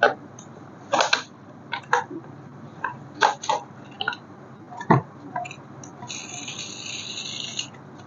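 Scattered clicks and knocks from handling a toy remote-control car and its packaging. About six seconds in comes a steady high rasp lasting about a second and a half.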